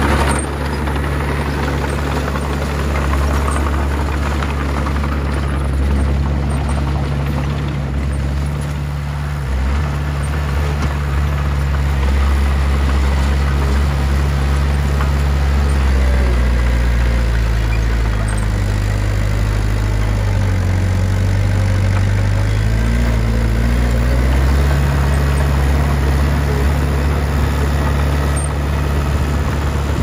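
Diesel engine of a small Komatsu crawler bulldozer running steadily as it pushes soil. Its note drops lower for a few seconds past the middle and then rises again.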